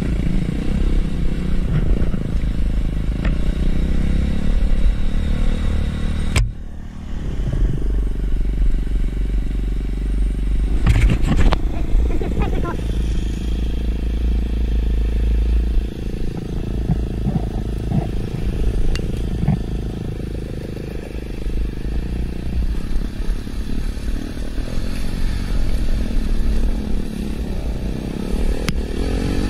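Dirt bike engine running on a rough trail, its throttle rising and falling, with clattering from the bike over the ground. The engine sound drops off sharply for a moment about six seconds in, then picks back up.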